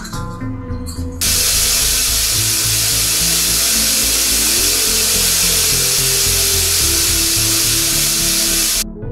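Tap water running into a bathroom sink, a loud steady hiss that starts about a second in and cuts off abruptly near the end, over soft background music.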